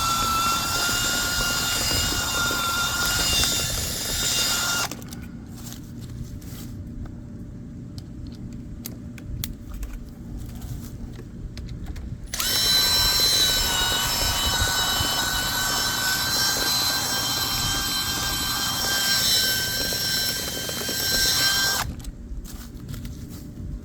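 A power drill's motor whining at high speed in two runs: about five seconds, then a pause with scattered clicks and rattles, then a second, longer run from about twelve seconds in until near the end.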